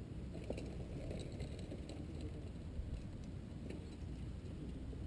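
Mountain bike riding past over a grassy dirt track, with a few faint clicks and rattles over a steady low rumble.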